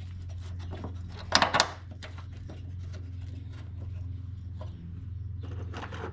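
Light metal clinks and taps of bolts and hand tools being handled while trying to start a motor mount bolt, with a sharper cluster of clinks about a second and a half in, over a steady low hum.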